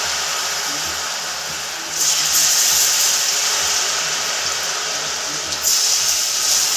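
Masala-coated potato strips deep-frying in hot oil in a kadai: a steady loud sizzle that swells suddenly about two seconds in and again near the end as more strips are scattered into the oil.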